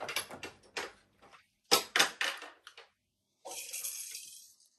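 Hard plastic parts of a ring-light kit clicking and clattering as they are handled, with two sharp knocks about two seconds in and a stretch of hissing rustle near the end.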